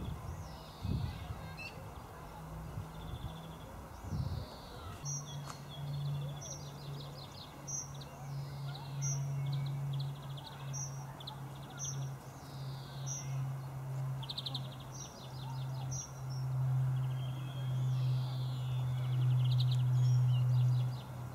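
Birds calling: short high chirps repeat about once a second, mixed with falling whistles. A low steady hum from an unseen source comes in about five seconds in and grows louder toward the end.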